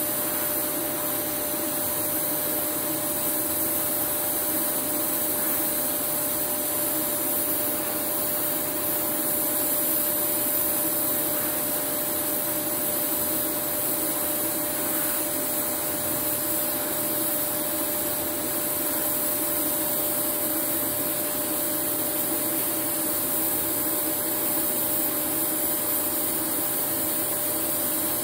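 TIG welding arc burning steadily on steel plate at about 125 amps, the torch carried along by a motorized welding carriage. It is a constant hiss with a thin steady tone running through it.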